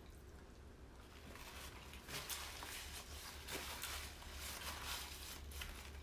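Close-up eating sounds: chewing seafood, with scattered soft wet clicks and smacks.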